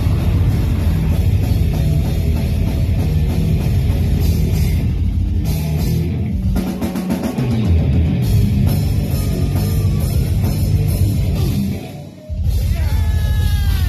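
Live heavy metal band playing: loud distorted electric guitar and bass over a pounding drum kit. The low end thins out briefly midway. Just after twelve seconds there is a short break before the band crashes back in.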